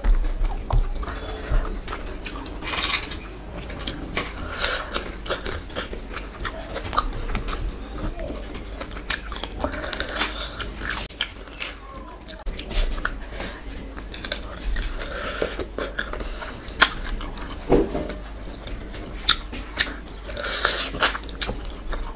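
Close-miked chewing of rice and fish curry eaten by hand, with many irregular wet mouth clicks and smacks.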